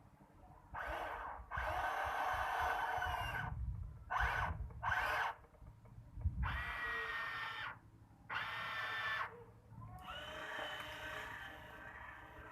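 Small electric gear motors of a remote-controlled toy excavator whining in a series of short stop-start bursts as the controls are worked, then a longer run near the end.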